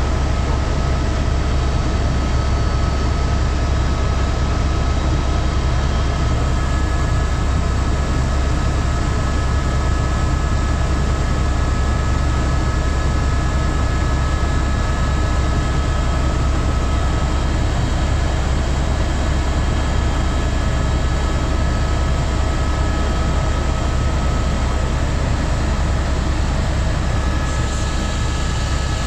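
Helicopter in flight heard from inside the cabin: a loud, steady deep drone of rotor and engine with a few constant high whining tones over it.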